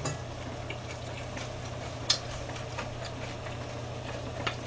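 A few light clicks of a metal ladle against a wok and a bowl while serving food, the sharpest about two seconds in, over a steady low hum.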